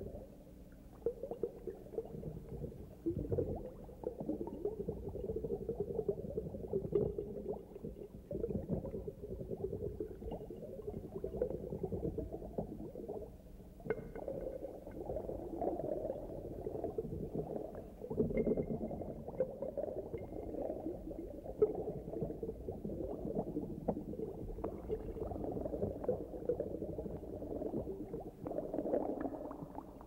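Aquarium water bubbling and gurgling continuously, low in pitch and unsteady, with a constant fine crackle of bubbles.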